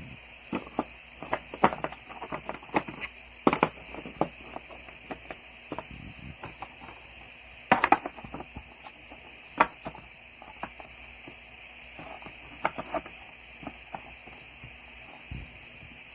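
Irregular clicks and knocks of hard objects being handled, loudest in two clusters about a third and half-way through, over a steady hiss.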